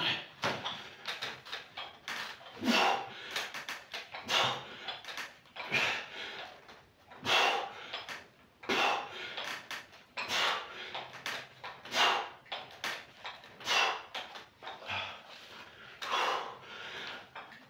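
A man breathing hard and rhythmically through a set of lying dumbbell triceps extensions. There is a forceful breath about every second and a half, roughly ten in all, with quieter breaths in between.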